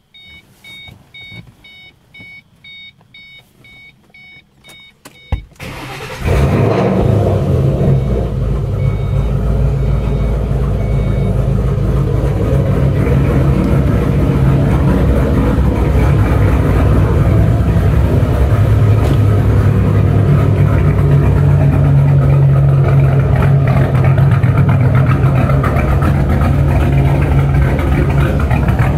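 A dashboard warning chime beeps about twice a second. About five seconds in, the 2005 Mustang GT's 4.6-litre three-valve V8, fitted with freshly installed Detroit Rocker aftermarket camshafts, cranks briefly, catches and settles into a steady idle.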